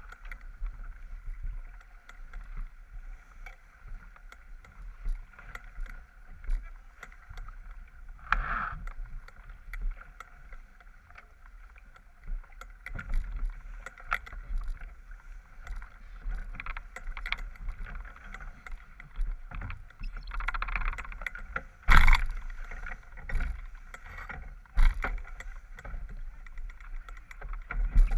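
Water rushing along the hull of a J24 sailboat heeled under sail, over a low rumble of wind on the microphone. Scattered knocks and clatter from the boat break through, the loudest about 22 seconds in and again about 25 seconds in.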